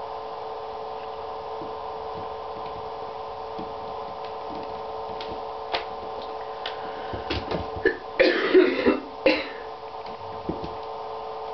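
A kitten's paws and claws clicking and scrabbling on an empty bathtub as it bats toys about, over a steady hum. About eight seconds in comes a louder burst of scuffling noise lasting a second or so.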